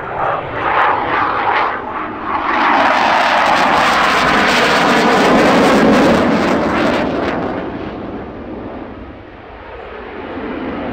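Twin turbofan engines of an Alenia Aermacchi M-346 jet trainer making a low pass. The jet noise swells loud about two and a half seconds in, falls in pitch as the jet goes by, fades away, and starts to build again near the end.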